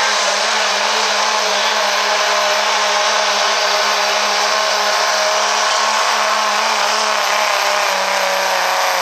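Diesel 4x4 pickup truck's engine running flat out under full load while pulling a weight-transfer sled, a loud steady note whose pitch sags slightly near the end as the load builds.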